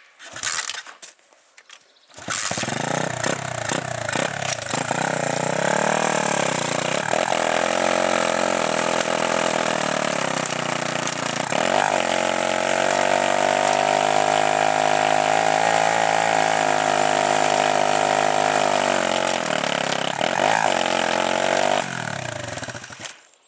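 Pit bike engine starting about two seconds in and running, with several quick revs and a long steady hold at higher revs. It drops back near the end and cuts off.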